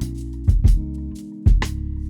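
Background music: a beat with pairs of drum hits about once a second over sustained bass and chord notes.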